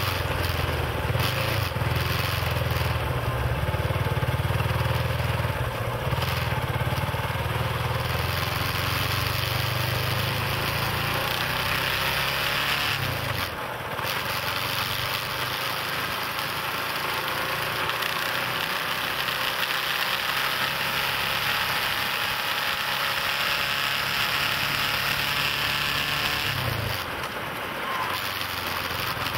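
Vehicle engine running with a steady low hum under road and wind noise while driving. The hum fades for a few seconds about halfway through and changes abruptly near the end.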